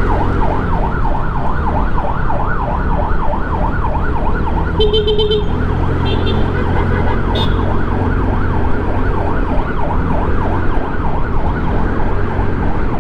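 Ambulance siren on a fast yelp, its pitch sweeping up and down about four times a second without a break, over the steady low drone of a motor scooter's engine and road noise. A short burst of beeping comes about five seconds in, and again a second later.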